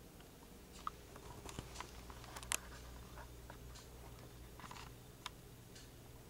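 Quiet room with a steady low electrical hum, broken by a few scattered small clicks and taps at irregular moments, the sharpest about two and a half seconds in.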